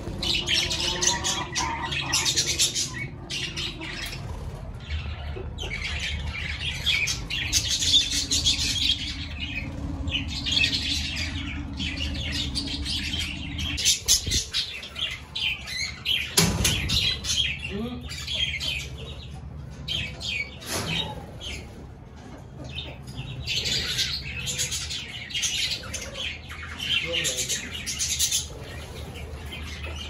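A flock of budgerigars chattering and warbling without pause, many birds calling over one another, over a steady low hum. There is one knock about halfway through.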